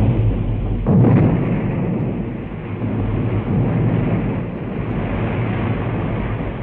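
Heavy naval gunfire and shell explosions: a continuous din of blasts, with a sudden loud blast about a second in.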